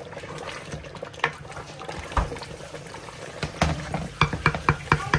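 Kitchen cooking sounds: a low wash of liquid, then a quick run of about eight sharp knocks near the end.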